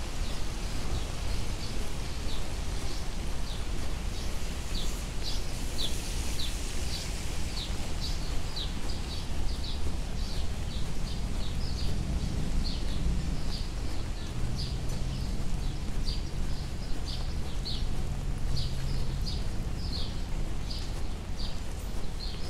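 A bird chirping over and over, short falling chirps about two a second, over a steady low rumble of city noise.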